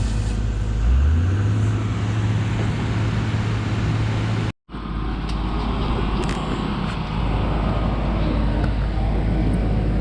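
Excavator's diesel engine running, revving up about a second in and holding the higher speed. The sound cuts out for a moment near the middle, then the engine runs on steadily with a few faint clicks.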